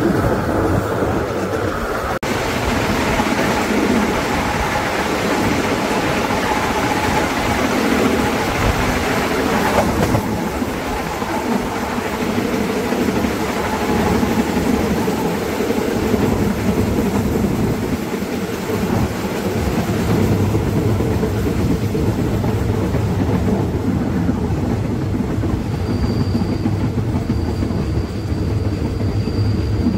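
Passenger train running on the rails, a steady rumble heard from on board, with a thin high whine for a few seconds near the end.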